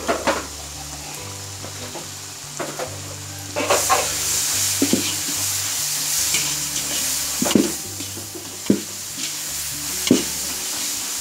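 Onions and green chillies sizzling in hot oil in a wok while being stirred with a ladle, the ladle knocking and scraping against the pan every second or two. The sizzling grows louder about four seconds in.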